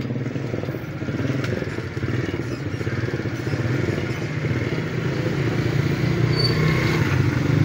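YDK 90-watt sewing machine motor running steadily with a low, even buzz, a little louder toward the end, on its newly fitted front bushing and carbon brushes.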